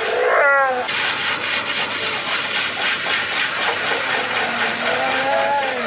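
Alaskan malamute whining and howling: a falling, wavering howl in the first second and a shorter rise-and-fall near the end, over a steady rasping hiss.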